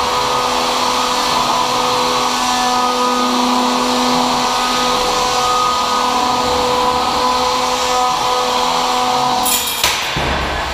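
Small combat robot's weapon motor spinning with a steady high whine, with one sharp metallic crack of a hit near the end.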